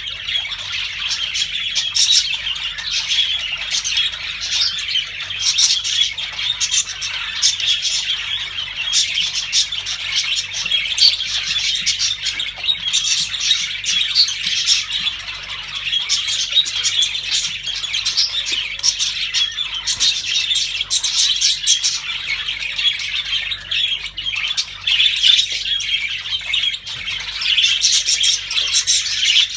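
A flock of budgerigars chattering continuously, a dense mix of warbling chirps and short squawks from several birds at once.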